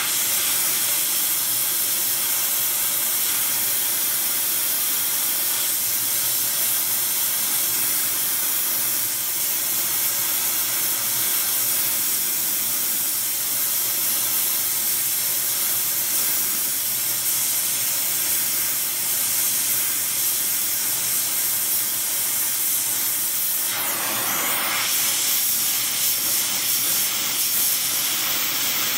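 Oxy-acetylene welding torch flame hissing steadily as it heats steel plate, with a brief louder rush of the hiss near the end.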